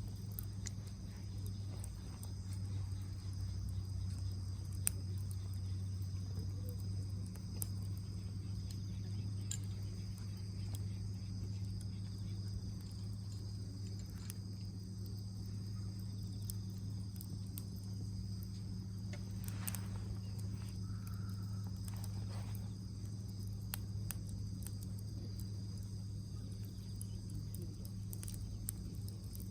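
A chorus of insects such as crickets chirring as a steady high drone, with scattered sharp pops and crackles typical of a pinecone-fed fire burning in a fire pit.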